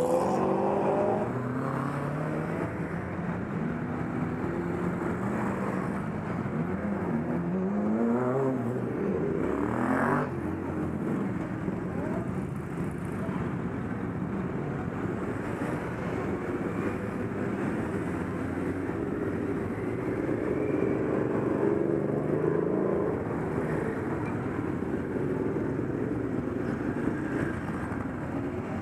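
Motorcycles and a trike riding past one after another, their engine notes rising and falling as each goes by and pulls away. One engine revs up sharply about ten seconds in.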